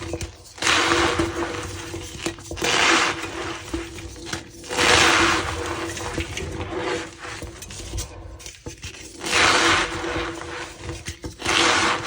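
Reformed gym chalk blocks crumbled and squeezed by hand, crunching and squeaking in repeated bursts about a second long, with lighter crackling between them.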